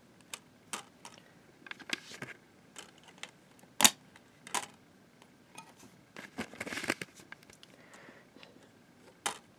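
A string of sharp plastic clicks and taps as DVDs are pressed and lifted off the snap-in centre hubs of a plastic multi-disc case, the loudest click a little under four seconds in, with a short stretch of rustling handling near seven seconds.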